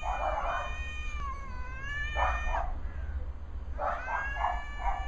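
A cat yowling in long, drawn-out, wavering calls: one trails off about two and a half seconds in, and a second starts near four seconds, with rougher noisy bursts alongside them.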